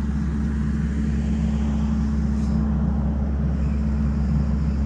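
Skid steer diesel engine running steadily, a constant low drone with no change in speed.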